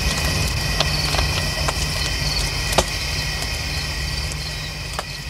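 Crickets chirping steadily over a low rumble, with scattered sharp clicks, growing fainter toward the end.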